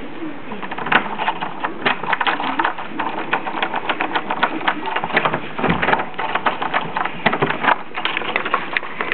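Rapid, irregular clicking, several sharp clicks a second, growing busier from about a second in.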